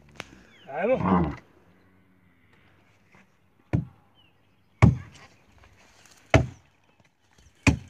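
Axe blows chopping into a tree trunk: four sharp, separate chops about one to one and a half seconds apart in the second half, cutting the wood away from a cow's head stuck in the trunk.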